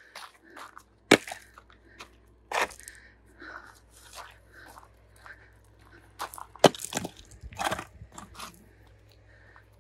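Footsteps crunching on gravel and firewood logs knocking as they are handled and set down, in a string of separate knocks and crunches; the sharpest come about a second in and around six and a half seconds.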